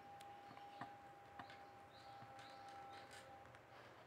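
Near silence with a few faint clicks and scrapes of a small screwdriver prying at a plastic modem case, over a faint steady thin tone that fades out near the end.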